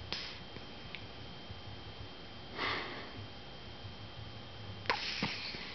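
Miniature dachshund snoring in her sleep: breathy snorts, a brief one at the start, a longer one about halfway through and another near the end.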